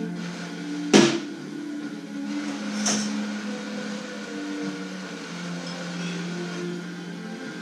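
Background music with sustained low notes that change pitch every second or so. A sharp click cuts through it about a second in, and a fainter click comes about three seconds in.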